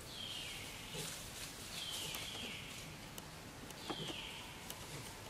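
An animal calling: four high whistled calls, each sliding down in pitch over about half a second, the second and third close together. A few light rustles and taps in dry leaves come through, loudest near the end.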